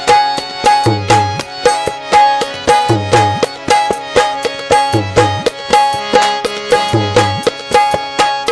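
Instrumental passage of a Balochi song: a quick hand-drum rhythm with a deep beat about every two seconds, under held melody notes, without vocals.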